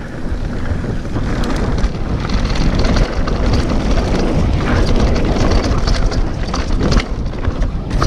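Wind buffeting the handlebar-mounted camera's microphone and mountain bike tyres rumbling over a dirt singletrack descent at speed, growing louder over the first second, with a few sharp knocks from the bike over bumps near the end.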